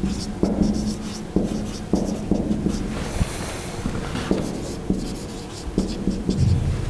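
Marker pen writing on a whiteboard: an irregular series of short strokes and taps as letters are written, a few per second.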